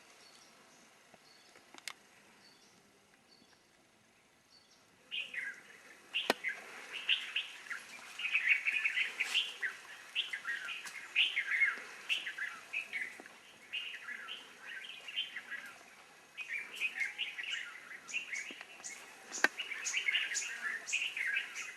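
Birds chirping in a busy chorus of quick twittering notes. The chorus starts about five seconds in, after a faint, quiet stretch, and carries on to the end. A few sharp clicks stand out above it.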